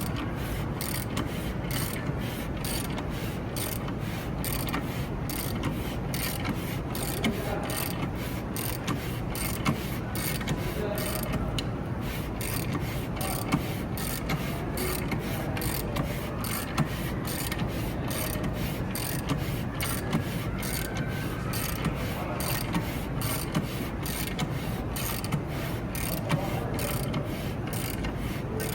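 Steady mechanical background noise with frequent small clicks and knocks throughout.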